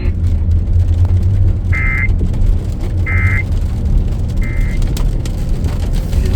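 Emergency Alert System end-of-message data code: three short, identical buzzy bursts about 1.3 s apart, marking the end of the broadcast alert. A steady low rumble runs underneath.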